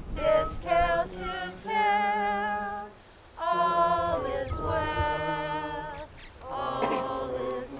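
Unaccompanied singing: a hymn-like melody sung without instruments, several notes held long with a slight waver.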